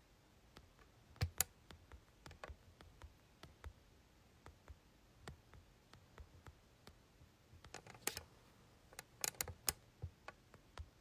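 Faint, irregular clicks and taps from fingers on a handheld smartphone, a couple of louder ones about a second in and a quick run of several near the end.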